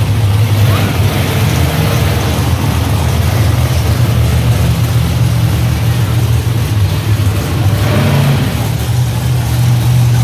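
Monster truck engine running loud and steady as the truck drives on the dirt, with a brief surge in revs about eight seconds in.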